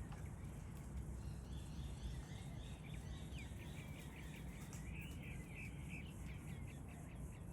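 A bird chirping in a quick run of short, high notes, about three a second, starting a couple of seconds in, over a low steady outdoor rumble.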